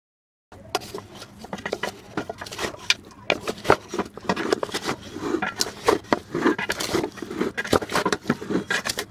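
A wooden spatula stirs beef pieces, sliced onions and spice pastes in a metal pot, with dense scraping and sharp knocks against the pot starting about half a second in.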